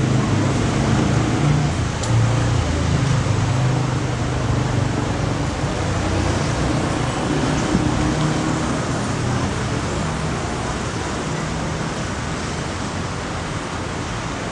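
Steady urban road traffic: a continuous hum of passing car engines and tyre noise, a little heavier in the first few seconds and easing slightly towards the end.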